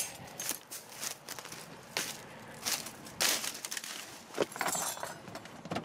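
Irregular scuffs, rustles and knocks of someone walking through grass and climbing into a vehicle with the camera in hand, with the loudest knock about three seconds in.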